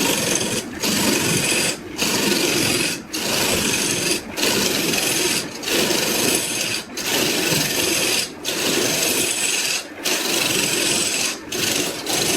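Wood being worked by hand in long, repeated strokes: a continuous rasping scrape with a short break about every second and a half, as each stroke turns.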